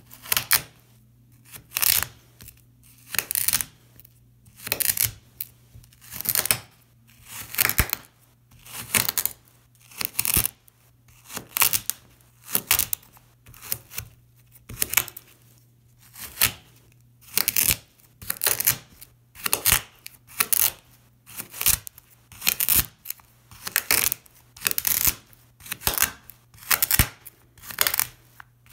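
Knife blade slicing again and again through a packed disc of brown sand on a mirror, each cut a short gritty crunch, in a steady run of about one cut a second.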